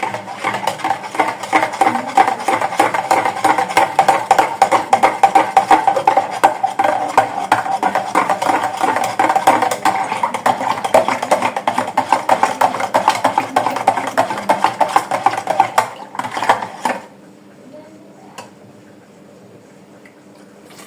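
A spoon stirring fast in a jug of soursop juice with condensed milk, a rapid clatter of clinks with a ringing tone, stopping abruptly about seventeen seconds in.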